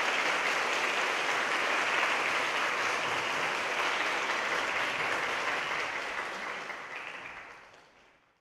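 Audience applauding steadily, then tapering off and dying away near the end.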